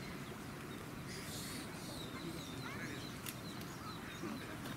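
Outdoor ambience: steady background noise with a few faint, short chirping calls from animals about halfway through.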